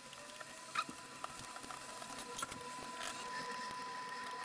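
Rapid typing on a mechanical keyboard fitted with ceramic keycaps: a dense, irregular run of small clacks.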